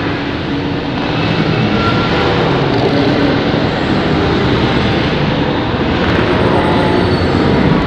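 Electronic soundscape: a dense, steady drone of layered noise with a few faint held tones, rising slightly in level about a second in.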